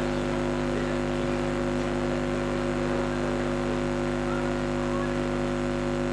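A steady, unchanging hum of several fixed tones over a constant hiss.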